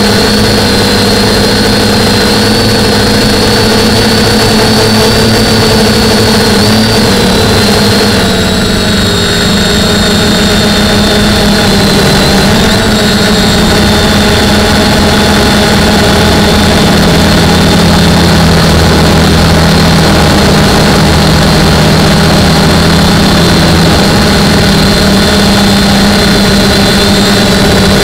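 Quadcopter in flight, its four DJI E300 920kV brushless motors and 9.4-inch propellers whining loudly and steadily. The pitch shifts a little with throttle changes, with a short dip about eight seconds in.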